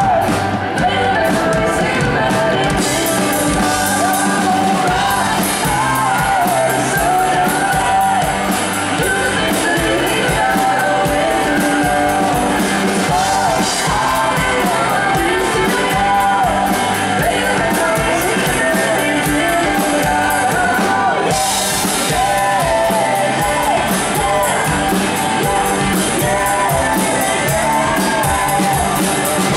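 Live country-rock band playing an upbeat song: electric guitars, bass, drums and fiddle, with singing.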